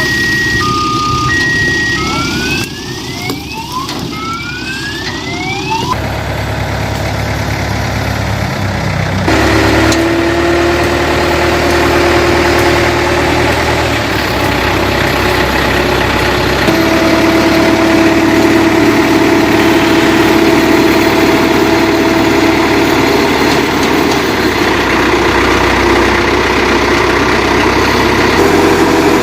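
A vehicle reversing alarm beeping in two alternating pitches, then switching to rising sweeping tones that stop about six seconds in. Then the Ajax self-loading concrete mixer's diesel engine runs steadily under a high whine, getting a little louder.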